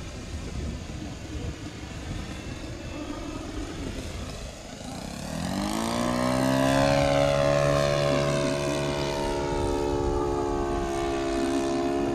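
Radio-controlled model plane's engine and propeller running, faint and rough at first; about five seconds in it rises in pitch and grows louder, then holds a steady tone.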